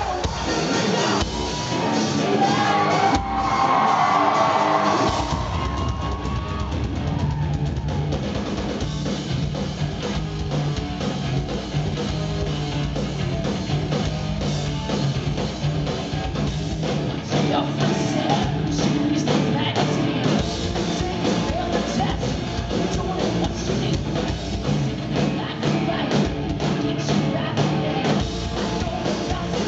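Live hard rock band playing loud: distorted electric guitars, drum kit and a woman singing. The opening is lighter, with no deep bass, and the full band comes in heavier about five seconds in.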